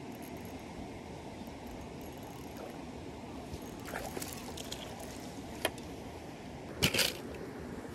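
Steady trickle of running water, with a few sharp clicks and a short, louder clatter about seven seconds in.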